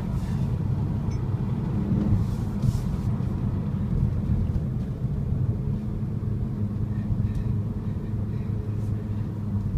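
Interior driving noise of a GTI on the road: a steady low engine hum and road rumble heard inside the cabin, holding a fairly even engine speed.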